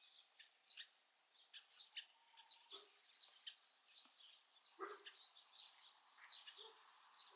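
Faint songbirds chirping: many short, high calls overlapping throughout.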